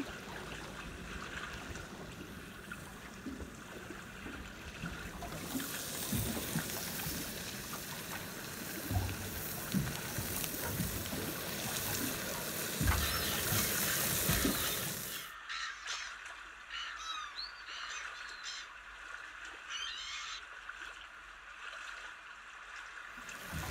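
Crayfish sizzling in a frying pan, a steady hiss that cuts off suddenly about two thirds of the way through, followed by a few short bird calls.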